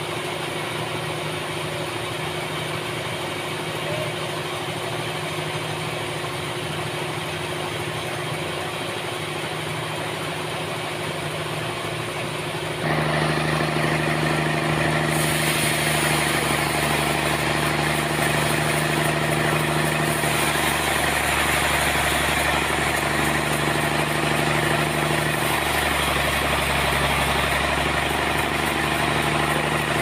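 Band sawmill machinery running with a steady mechanical hum. About 13 s in it jumps to a louder, fuller running sound with more hiss as the scene moves to the saw at a large trembesi log, and the low hum shifts again near the end.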